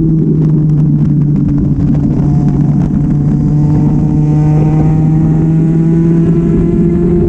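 Stock 2005 Aprilia RS125's single-cylinder two-stroke engine running under way at nearly constant revs, its pitch rising slightly near the end, over a rush of wind and road noise.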